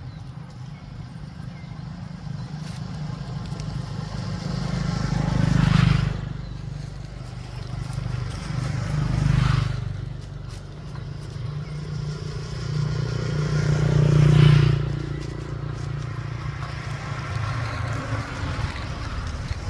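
Motor vehicle engines passing by: a steady low engine hum that swells and fades three times as vehicles go past.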